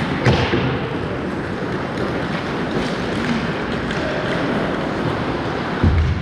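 Ice hockey play in an indoor rink: a steady wash of skates and rink noise, with a sharp crack about a third of a second in and a low thump near the end.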